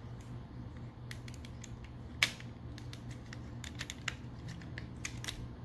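Hard plastic parts and joints of a Transformers Nemesis Primal action figure clicking as they are moved into gorilla mode by hand: scattered small clicks, the sharpest about two seconds in, over a steady low hum.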